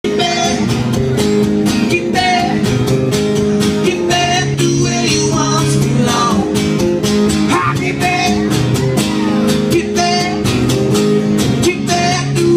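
Live acoustic guitars strummed in a steady rhythm, with a man's voice singing a song over them.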